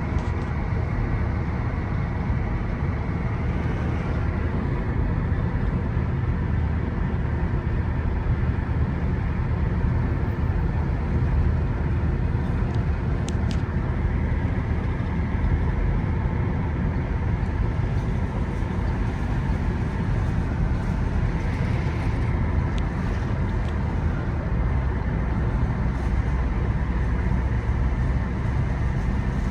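Car driving on the road: steady engine and tyre rumble.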